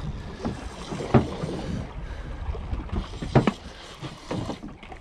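Small boat drifting at sea: wind on the microphone and water moving against the hull, with a few sharp knocks, the loudest about a second in and again past the middle.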